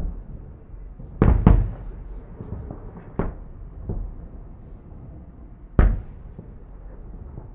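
Fireworks salute booming: two loud booms about a second in, another near three seconds and one near six, with fainter booms between, each trailing off.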